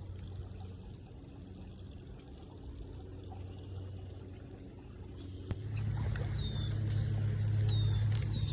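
A motor vehicle's engine hum that grows much louder about five and a half seconds in, with a few clicks and several short falling chirps near the end.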